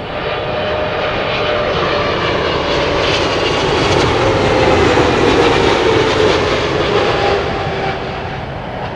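Boeing 777-300's twin GE90 jet engines as the airliner passes close by on landing approach. The sound swells to its loudest about halfway through and then fades, while the engine whine slides down in pitch as it goes past.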